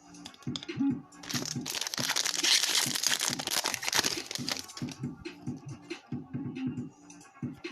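Foil trading-card pack wrapper being torn open and crinkled for about three and a half seconds, starting about a second in. Background music plays throughout.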